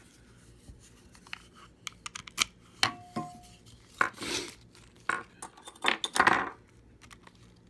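Metal clicks and clinks from a Kryptonite steel U-lock being handled while its key is turned in the cylinder, with a short metallic ring about three seconds in and two louder scraping rattles later on.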